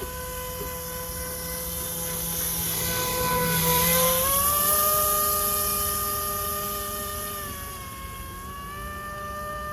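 RC airboat's brushless electric motor (Roxxy 36-42, 930 kV, on 4S) spinning a three-blade air propeller, making a steady pitched whine. The pitch falls at the start, climbs again about halfway through, dips briefly and comes back up as the throttle changes. The whine grows louder toward the middle and then falls away.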